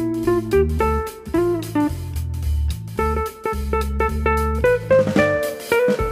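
Background music: a plucked guitar playing a melody of single notes, some bent in pitch, over a bass line.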